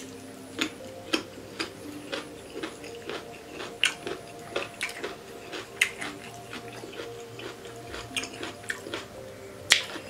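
Close-miked eating: chewing and mouth sounds on pork curry with rice, a string of irregular sharp clicks and smacks, the sharpest near the end. Faint background music with steady tones runs underneath.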